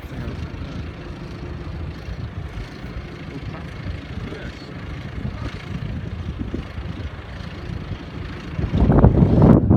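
Diesel tractor engines running steadily, a low drone. A louder, closer sound cuts in near the end.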